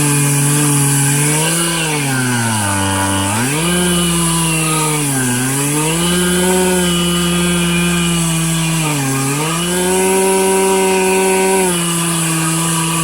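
Stihl MS 441 C-M Magnum two-stroke chainsaw running at high revs while ripping a red oak log lengthwise in a chainsaw mill. Its pitch sags several times as the chain bogs under load in the cut, most deeply about three seconds in, then climbs back.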